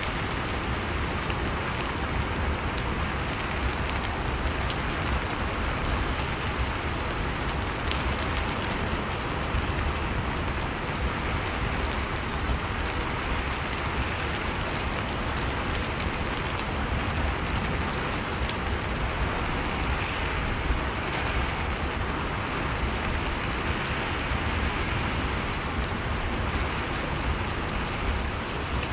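Steady rain falling on a surface, an even hiss with scattered drop ticks and a low rumble underneath.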